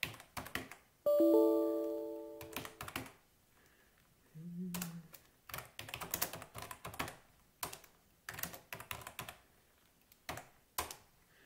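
Computer keyboard typing in short bursts of keystrokes. About a second in, a chime of several steady tones rings out and fades over about two seconds; it is the loudest sound.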